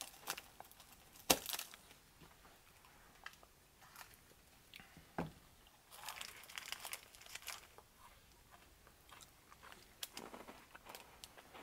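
Foil snack wrapper being slit with a knife and peeled open by hand: a few sharp clicks early on, then short spurts of crinkling foil about six seconds in and again near the end.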